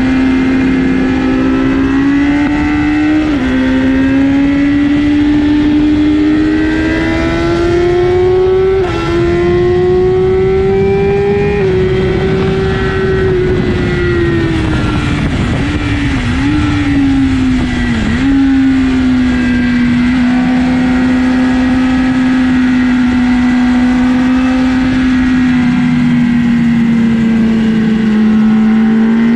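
BMW motorcycle engine running hard at high revs on a race track. The pitch drops sharply about three seconds in, as at an upshift, then climbs for several seconds. It falls with two quick dips, holds steady for about ten seconds, and rises again near the end.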